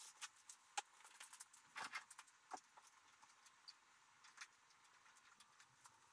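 Near silence with faint, scattered metallic clicks and clinks, most of them in the first three seconds: hand tools and parts being handled under a truck raised on a lift.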